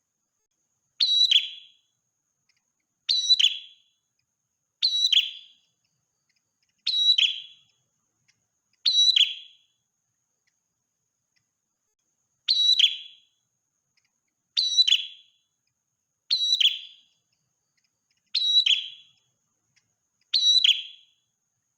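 Prenjak merah, a prinia, giving short, sharp, high calls, ten of them about two seconds apart, with a longer pause midway. Each call is under a second long and falls in pitch at its end.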